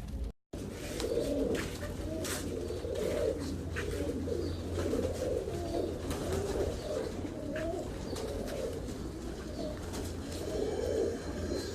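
Several Swallow fancy pigeons cooing over one another in a steady, continuous chorus, with a few short clicks and a low hum underneath. The sound cuts out completely for a moment about half a second in.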